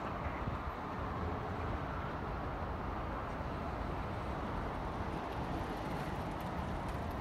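Steady outdoor background noise with no distinct events, and a few faint light ticks in the second half.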